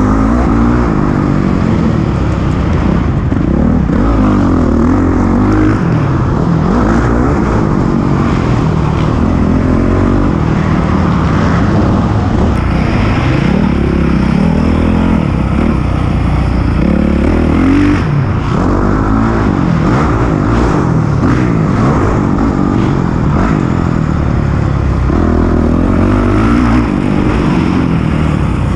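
Honda CRF450R's single-cylinder four-stroke motocross engine, ridden hard. It revs up and falls back over and over as the rider accelerates and backs off around the track.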